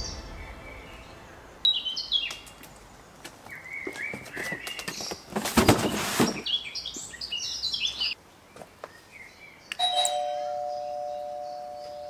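Birds chirping in short repeated high notes, broken by a loud rush of noise about a second long in the middle. Near the end a bell-like two-note chime sounds, like a doorbell, and rings on, slowly fading.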